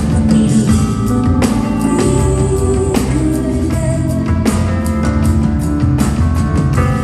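Live rock band music: a woman singing over a drum kit, keyboards and guitar, with steady drum strikes.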